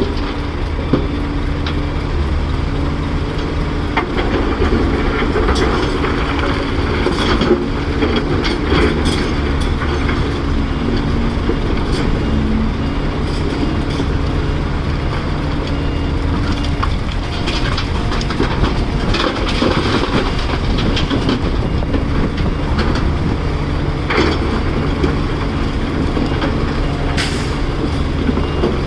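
Caterpillar 336 hydraulic excavator's diesel engine running steadily under load, with scattered clanks and rattles of the steel bucket and rock.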